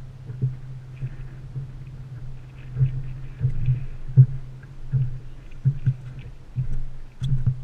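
Water slapping against a boat hull in irregular low thumps and knocks, over a steady low hum.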